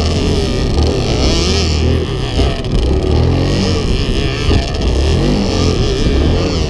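Several off-road vehicle engines running at once, their pitch rising and falling as they rev up and ease off.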